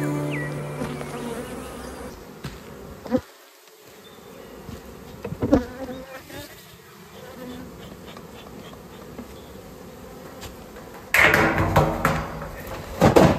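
Honeybees buzzing around a beehive, with a few sharp knocks. Near the end comes a louder burst of noise and a loud knock.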